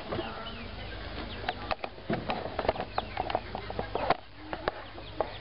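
Chickens clucking, with short high chirps, over a scatter of sharp clicks and taps.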